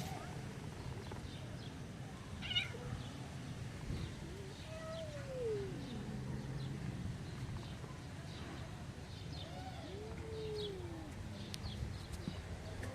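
Stray tabby cat meowing twice, each a long call that falls in pitch, about five and ten seconds in.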